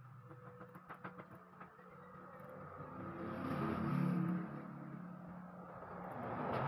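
A computer mouse clicks several times, then a low rumbling noise swells to its loudest about four seconds in, eases off, and rises again near the end.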